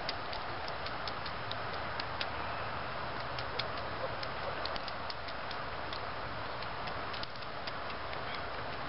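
Pheasants pecking seed off gravel: quick, irregular sharp clicks of beaks striking grain and stones, several a second, over a steady background hiss.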